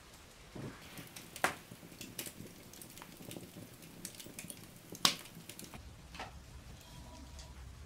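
Wood fire crackling in an open hearth: scattered sharp pops and ticks, with two louder cracks, one about a second and a half in and one about five seconds in.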